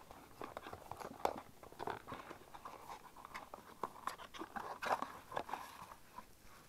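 A small cardboard blind box being opened by hand: scattered crinkles, clicks and scrapes as the thin card flaps are pried apart and the packing inside is handled, with a louder crackle about five seconds in.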